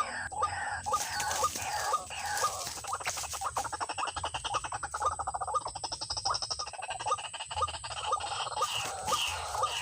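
White-breasted waterhen calling: a short repeated 'uak' note about twice a second, breaking in the middle into a fast run of rapid clucking notes before the slower repeats return.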